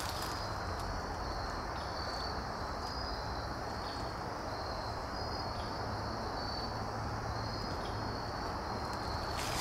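Crickets chirping in the woods at dusk: a steady high insect trill with short chirps repeating roughly once a second over a constant hiss.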